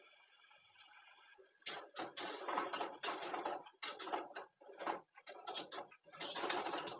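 Wire spider skimmer scraping and clattering against a metal kadai as it scoops fried chana dal pakodas out of hot oil, in a run of short bursts starting about a second and a half in. A faint steady hum comes before them.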